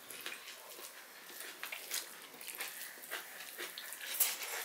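Two people eating fried rice with their hands: soft chewing, lip smacks and small wet clicks, scattered and irregular, with one a little louder about four seconds in.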